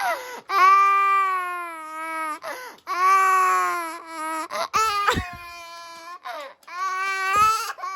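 A young boy crying in a series of long, high wails, one after another with short breaths between, and a couple of dull bumps partway through.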